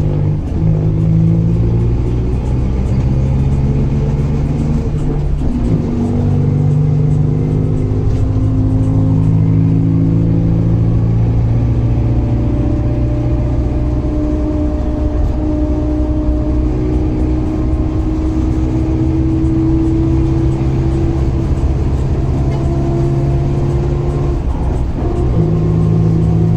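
Mercedes-Benz LO 916 bus's OM924LA four-cylinder diesel engine running steadily. Its note climbs slowly, changes abruptly about five seconds in, and shifts again near the end.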